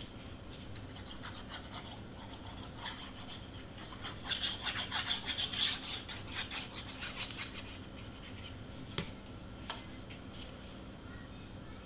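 Cardstock pieces being handled and rubbed flat by hand: a run of quick, scratchy rubbing strokes through the middle, then a couple of light clicks.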